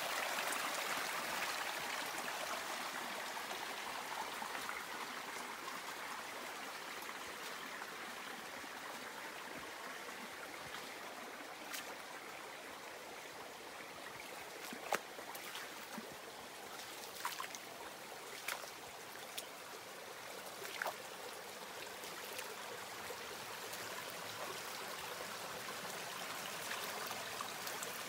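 The South Fork Skokomish River flowing in a steady rush of water. It eases off a little over the first half and builds again towards the end, with a handful of sharp clicks in the middle.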